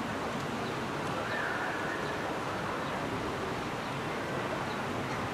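Steady outdoor background rush with no train in earshot, broken by a few faint high chirps.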